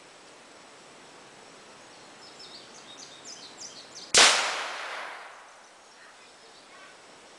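A single gunshot about four seconds in, sharp and loud, its echo dying away over about a second and a half. Before it, a bird chirps a quick run of high notes.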